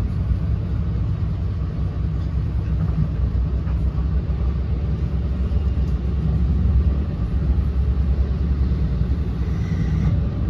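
Steady low rumble of an NJ Transit MultiLevel passenger coach under way, wheels running on the rails, heard from inside the car.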